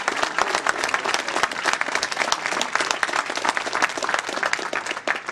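A large crowd applauding, many hands clapping together, thinning out near the end.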